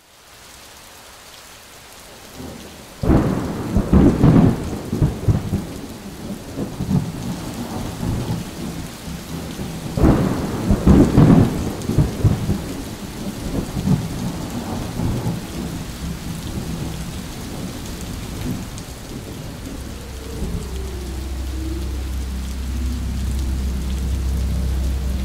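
Steady rain with two long rolls of thunder, one about three seconds in and another about ten seconds in. Near the end a low steady drone comes in under the rain.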